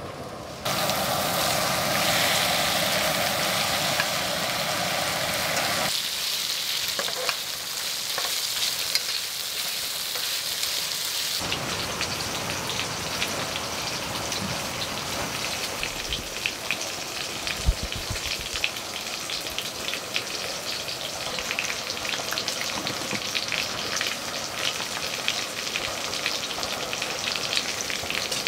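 Pork belly sizzling as it fries: a steady hiss full of small crackling pops, which grows denser and more crackly about a third of the way in.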